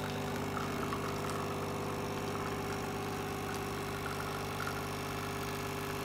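Magimix Nespresso capsule coffee machine's pump buzzing steadily as it forces water through the capsule, brewing an espresso shot.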